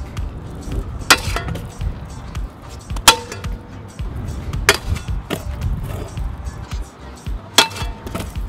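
Background music, over the sharp metallic clacks of a kick scooter hitting a steel grind rail and the pavement. There are four loud hits, and a couple of them ring briefly.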